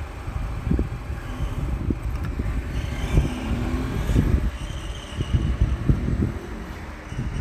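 Car driving on a dusty dirt track, heard from inside the cabin: a steady low road rumble with frequent thumps and jolts from the rough surface.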